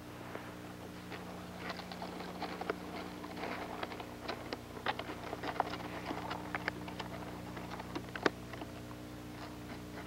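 Irregular small crackles and sharp ticks from a pile of paper and small twig kindling being handled and starting to burn, with one louder snap late on.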